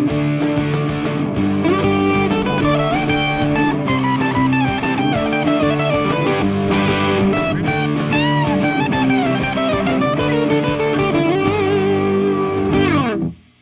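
Instrumental music led by electric guitar, with melodic bends over an even beat. Near the end a falling slide is heard, and then the music cuts off abruptly.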